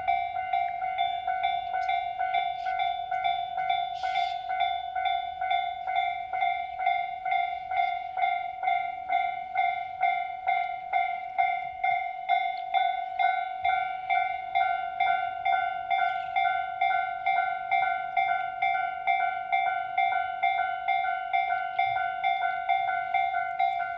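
Japanese railway level-crossing warning bell ringing in a steady, even rhythm of about two strikes a second, signalling that a train is approaching and the crossing is closed.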